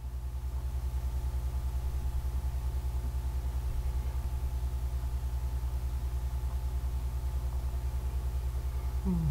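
Steady low electrical hum with a fast, even pulse. Near the end a short low vocal sound falls in pitch.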